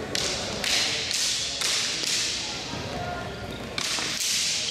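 Steel practice longswords clashing and striking in a bout: sharp hits about two a second, then two more close together near the end.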